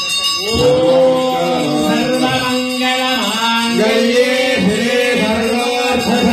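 Devotional singing of a Hindu harathi (aarti) hymn, a voice drawing out long, wavering notes.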